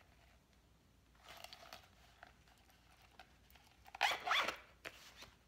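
Zipper on a zip pouch being pulled, with one quick loud zip about four seconds in.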